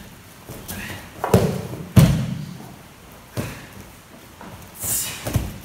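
Bodies hitting padded dojo mats: an aikido partner being thrown and taking breakfalls, giving several heavy thuds. The loudest two come about a second and a half and two seconds in, with lighter ones later and a short hiss near the end.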